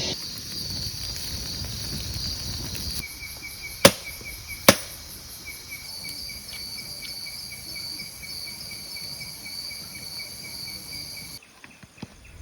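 Insects chirring steadily in a fast, even pulse. Two sharp knocks a little under a second apart cut through about four seconds in. The chorus cuts off near the end.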